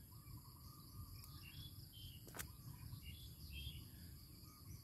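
Faint outdoor ambience of insects trilling steadily at a high pitch, with a few short bird chirps. A single sharp click comes about halfway through.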